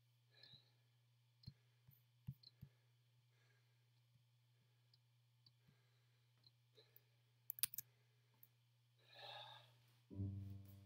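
Near silence broken by a few faint clicks from working a computer, then a breath about nine seconds in. Quiet piano music starts just before the end.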